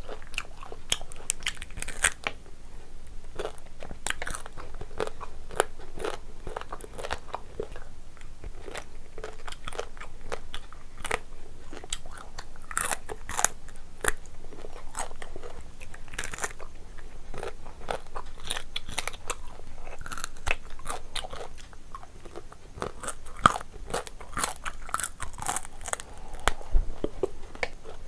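Close-miked mouth sounds of eating a curried crab by hand: crunching on shell, chewing and sucking meat and gravy from the shell, with many sharp, wet clicks.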